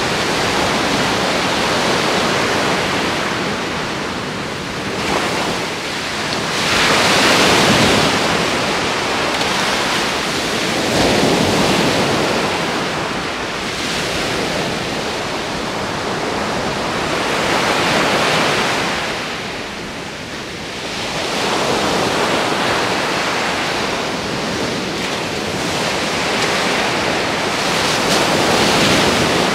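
Surf of small waves breaking and washing up a sandy beach, rising and falling with each wave every few seconds, loudest about seven seconds in.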